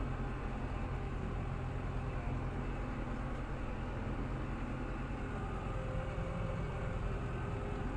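Tractor engine running steadily at working revs with a constant low drone while it works a rotary grass tedder.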